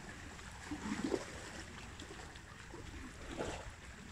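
Water sloshing and splashing around an elephant wading through a muddy river, with two short louder surges, about a second in and again near the end.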